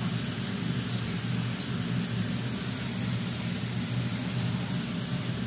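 Steady mechanical hum with an even hiss over it, unchanging throughout, like a running motor or fan.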